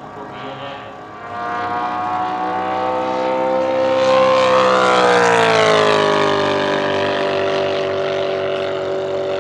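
Gasoline engine of a large-scale R/C P-47 Thunderbolt model airplane on a flypast: the engine note gets louder from about a second in, peaks about halfway through, and drops in pitch as the plane passes, then holds steady at the lower pitch.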